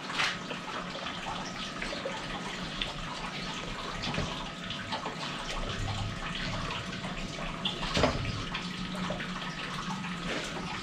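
Steady background hiss with a faint hum, broken by a few soft knocks and handling sounds as a PCP air rifle is lifted onto its rest and a small box is picked up. The clearest knocks come just after the start and about eight seconds in.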